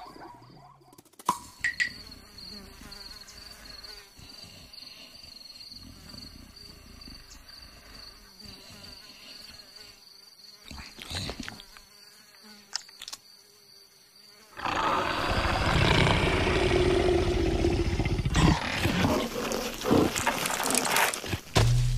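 Cartoon sound effects of a fly buzzing steadily and faintly around a sleeping leopard. About two-thirds of the way through, a much louder stretch of rustling and creaking begins, with an animal's grunts, as the fat leopard slips around the branch.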